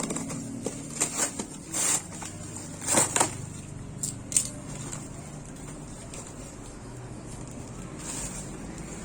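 Packaging or bottle being handled: several short rustles and knocks in the first half, then quieter, over a steady low hum.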